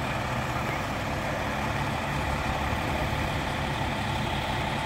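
Fire truck's diesel engine idling steadily, a constant low hum.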